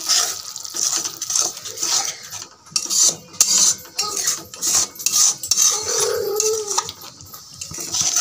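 Metal spatula scraping and stirring masala round the inside of a metal kadai, in short repeated strokes, several a second.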